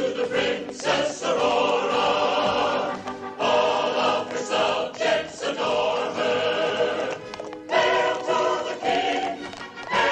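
Choir singing a stately song with orchestra.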